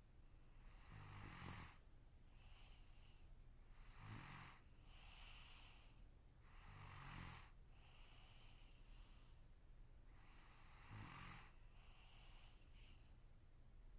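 A sleeping person snoring, about one breath every three seconds. Four short snores come through, each followed by a softer, breathy out-breath.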